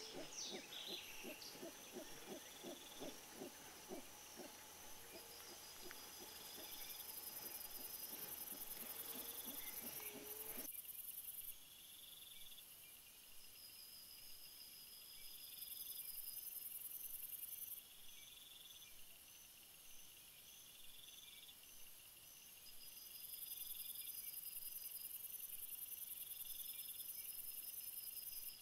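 Howler monkeys giving a rapid run of deep, guttural grunts, about three or four a second, for roughly the first ten seconds over a high insect drone. Then the calls cut off abruptly and only insects remain: a shrill cicada-like buzz that starts and stops in long stretches, with steady cricket chirping underneath.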